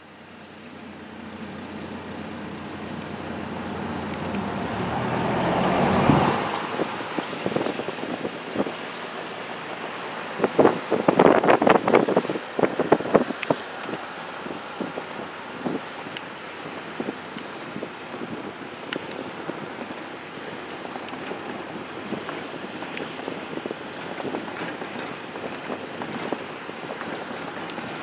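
A motor vehicle approaches and passes close by, its engine growing steadily louder for about six seconds and then dropping away suddenly. A quick run of knocks and rattles follows about eleven to thirteen seconds in, then steady background traffic.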